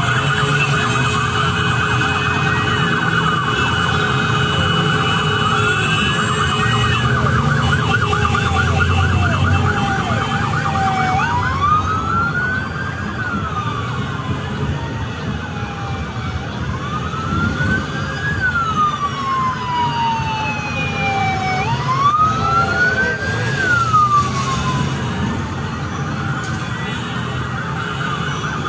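Sirens of a police motorcycle escort, more than one sounding at once: a fast warbling yelp for about the first ten seconds, then slow wails that rise and fall three times. A low engine and traffic rumble runs underneath.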